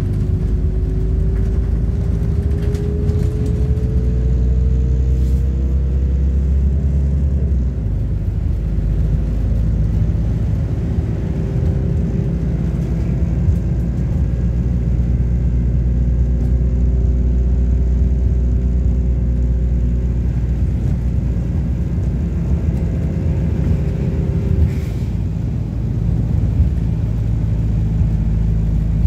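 MAZ-226 bus driving, heard from inside the passenger cabin: a steady low engine and road rumble, with a whine that rises in pitch over the first several seconds. The sound changes about seven seconds in, then a steadier whine runs until it drops away near the end.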